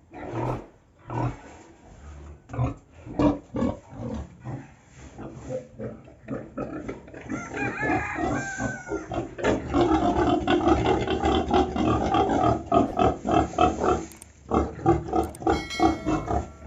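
Pigs grunting in rapid, repeated pulses, with a wavering squeal about eight seconds in. The grunting becomes denser and louder from about ten seconds in.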